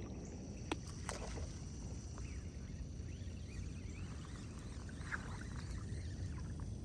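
Outdoor ambience of a wader standing in calm saltwater: a steady low rumble with water lapping, and a couple of faint clicks about a second in.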